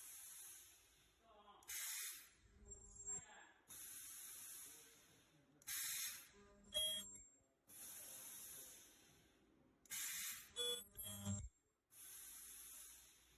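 Ultrasonic sponge-welding machine cycling. About a second of steady high hiss is followed by a short, louder burst of hiss with a click, and the cycle repeats about every four seconds.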